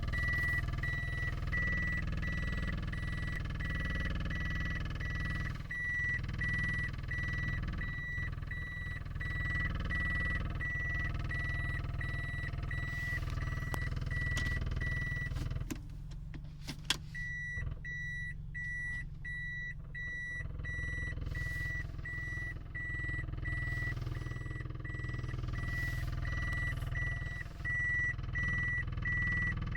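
Car engine running with a steady low rumble, while an electronic beep repeats about twice a second. The beeping stops for a second or two just past the middle, with one sharp click in that gap.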